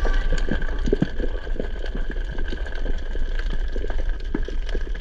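Underwater ambience picked up by a camera in its housing: a steady low rumble with a faint steady tone above it, and irregular small clicks and crackles scattered throughout.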